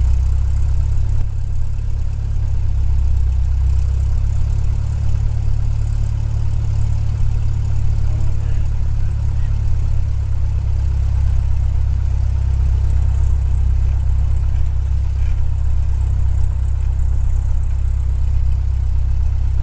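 Cessna 172's piston engine and propeller running steadily at low taxi power, a constant low drone heard from inside the cabin.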